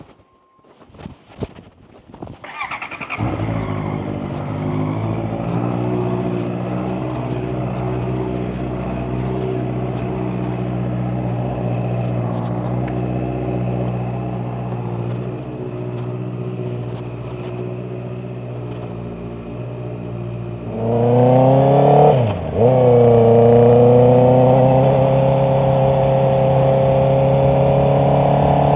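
Honda CBR650R's inline-four engine starting after a few clicks and knocks, then idling steadily. About 21 seconds in its revs rise, dip sharply for a moment, and then hold at a higher, louder pitch.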